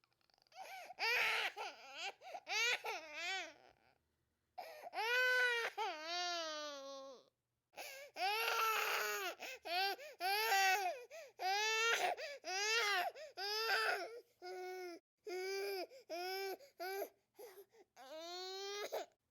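Baby crying hard in repeated wails, with short gaps between them for breath. The first half holds longer wails of a couple of seconds each; after that come short cries about a second apart, and one longer rising wail near the end.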